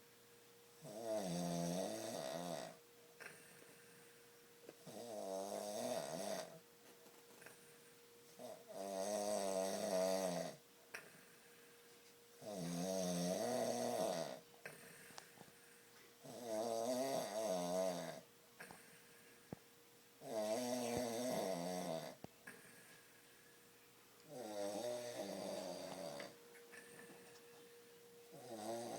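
A man snoring, one long snore about every four seconds, each lasting one and a half to two seconds with a wavering pitch.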